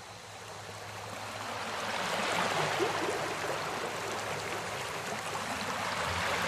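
Running water, like a stream, swelling in level over the first two seconds and then holding steady, with a faint low hum beneath.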